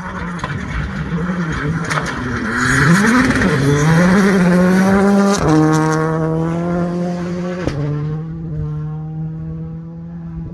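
Rally car engine revving hard as the car comes up and passes close by, loudest a few seconds in. About halfway through the pitch steps down, and the engine then holds a steady note as it fades away.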